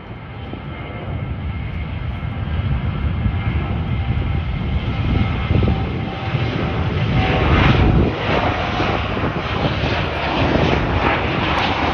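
Jet airliner engine noise: a heavy rumble with a faint whine, swelling to its loudest about eight seconds in as the aircraft passes.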